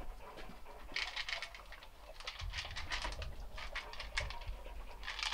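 Yellow Labrador retriever eating from a bowl: rapid, irregular crunching and clicking that starts about a second in.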